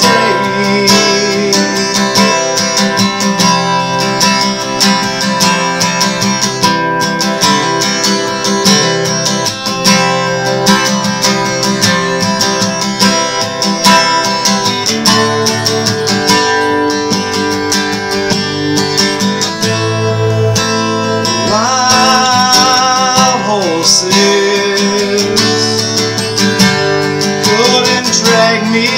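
Steel-string acoustic guitar strummed steadily in full chords.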